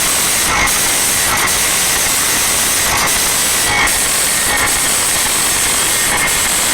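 Loud, steady hiss-like noise from a road-show DJ sound system during a sound check, heard as a dense rush with faint regular pulses about every 0.8 seconds.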